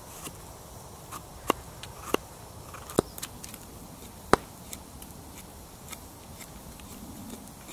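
Knife whittling a green wooden stick into a skewer over a log stump: a series of sharp, irregular clicks from the cutting strokes, four of them louder, the loudest about four seconds in.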